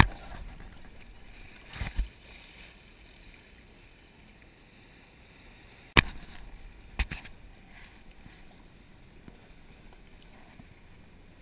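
Water sloshing against a small boat's hull with a faint steady hiss, broken by sharp knocks: two close together about two seconds in, the loudest about six seconds in, and another a second later, as the anchor rope and chain are handled against the boat.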